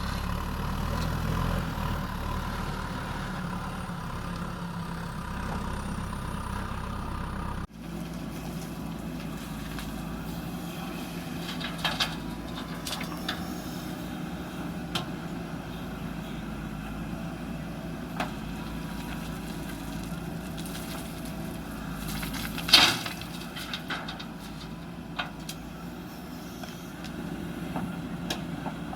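Diesel engine of a JCB backhoe loader running steadily, with scattered metallic clanks and knocks from the machine at work; the sharpest knock comes about 23 seconds in.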